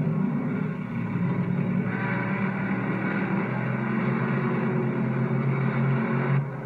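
Stock car engines running at racing speed on a dirt oval, a steady drone that dips briefly near the end.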